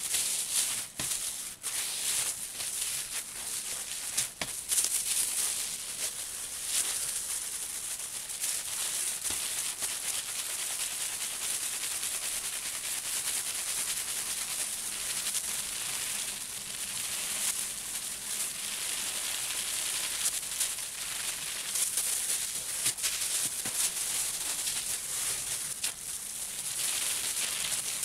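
Gloved hands rubbing and rolling wet wool felt on bubble wrap: a steady scrubbing hiss that swells and fades with the strokes, with a few sharp crackles in the first few seconds. This is felt being fulled (shrunk and firmed by friction).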